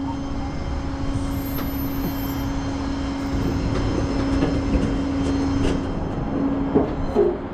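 Tow truck running with its hydraulics working the rollback bed: a steady whine over the engine's low rumble. It cuts off near the end with a couple of clunks.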